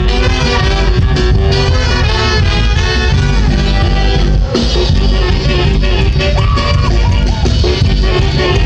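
Loud live band music for a carnival dance, with brass and guitar in a lively Latin dance rhythm.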